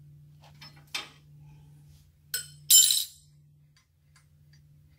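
Metal hand tools and bolts clinking against the engine's mounting brackets: a clink about a second in, then a sharper clink and a short ringing metallic rattle just before three seconds, the loudest sound.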